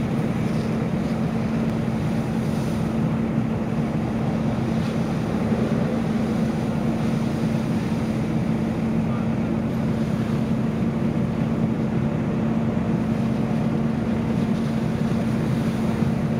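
Fire engine running its pump at a steady speed, a constant low drone, under the rushing hiss of water from the hose lines.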